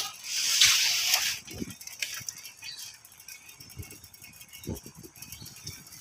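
Loose rattling and light irregular knocks from a vehicle being ridden, with no engine tone. A short, loud rush of hissing noise comes about half a second in.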